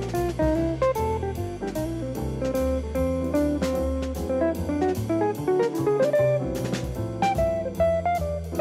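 Background music: a plucked guitar melody over bass and drums with a steady beat.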